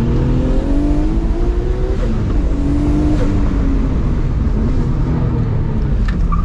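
Nissan R32 Skyline GT-R's RB26 straight-six, converted to a single HKS T04R turbo, pulling hard under boost. The engine note rises, breaks at a gear change about two seconds in, climbs again, and eases off just after three seconds.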